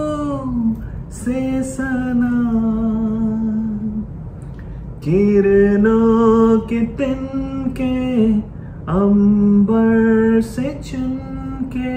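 A man singing a slow melody in long held notes, phrase after phrase with short breaks between them.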